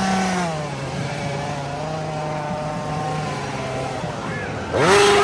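Petrol chainsaw engine revving. The pitch drops at the start, holds steady at high revs, then rises again in a sharp, loud rev near the end.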